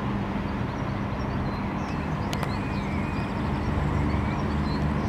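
Outdoor town ambience: a steady low hum with birds chirping now and then.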